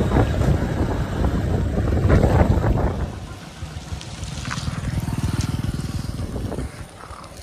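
Wind buffeting the microphone on a moving motor scooter, then the scooter's small engine running with a fast, even beat that fades out about a second before the end.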